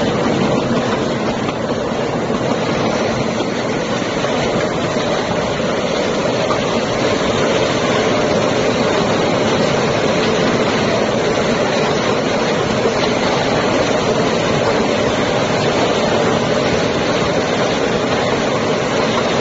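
Rotary bottle unscrambler running: a steady, dense clatter of bottles tumbling and sliding in the machine, over its drive noise.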